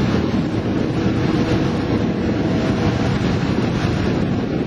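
Wind buffeting the microphone over the open sea, with a steady wash of waves. A faint steady hum sits under it between about half a second and three seconds in.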